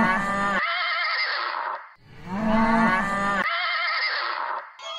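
Horse whinnying twice, the same quavering call played back to back, each about two and a half seconds long.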